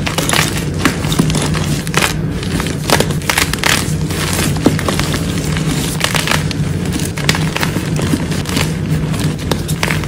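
Soft blocks of blue-dyed gym chalk crunching and crumbling as hands squeeze and break them apart, in many quick, irregular crunches. A steady low hum runs underneath.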